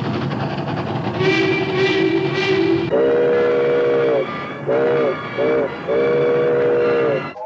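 Steam locomotive running with its chime whistle blowing: a long blast about three seconds in, two short blasts, then another long blast, each starting with a slight rise in pitch.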